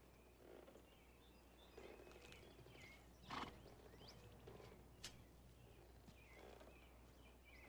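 Near silence: faint outdoor quiet with a few faint bird chirps and one brief soft sound about three and a half seconds in.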